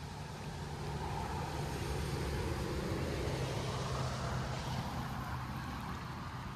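Steady rush of a rain-swollen, muddy creek, with the low rumble of a passing vehicle that swells over the first few seconds and then fades.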